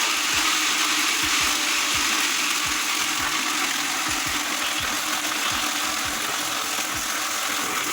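Countertop blender running steadily, its motor and blades churning ice, dates, melon and milk into a shake.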